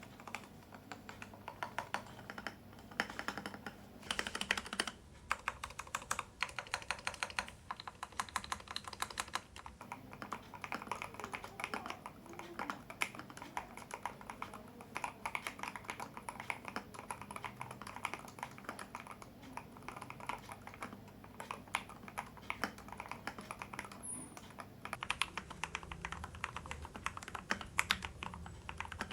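Continuous fast typing on a Keydous NJ80 mechanical keyboard with a brass plate and dampener, many quick key clacks overlapping, picked up by a smartphone microphone.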